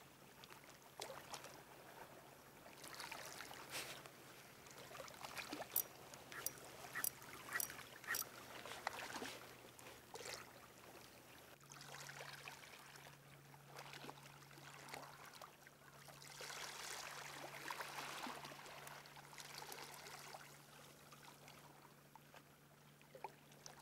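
Faint small waves lapping and trickling against the rocks at the water's edge, with a run of light, sharp clicks about six to eight seconds in.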